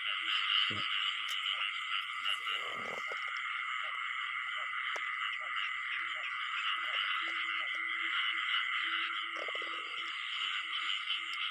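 Dense chorus of frogs calling in a flooded rice paddy: a steady high massed trilling with short, scattered lower croaks. It is the breeding chorus that follows the first rains, with the small paddy frogs pairing up.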